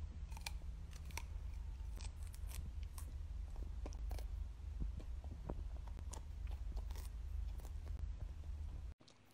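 Dachshund biting and chewing a crisp green vegetable stalk: a run of sharp, irregular crunches, over a low steady rumble.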